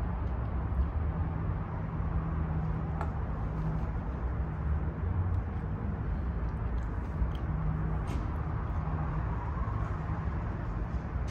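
Steady low rumble of outdoor traffic, with a low hum that swells twice for a few seconds, and a few faint clicks.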